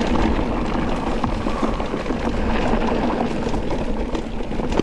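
Riding noise from an electric mountain bike on the move: wind rushing over the camera's microphone, with tyre rumble and small rattles from the bike.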